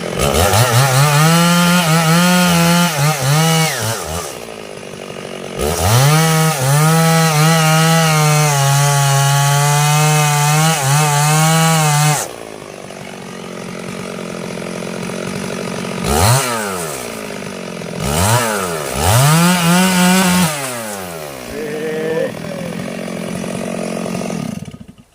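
Stihl two-stroke chainsaw cutting sengon wood: revved to full throttle for about four seconds, back to idle, then a longer run of about six seconds at full throttle with the pitch sagging slightly under load. It idles, is given a few short blips of throttle, and is switched off near the end.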